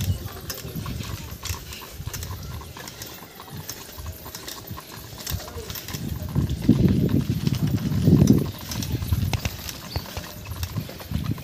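Bicycle rattling and clicking as it is ridden over a rough, uneven lane, with irregular knocks and a low rumble that grows louder for a couple of seconds past the middle.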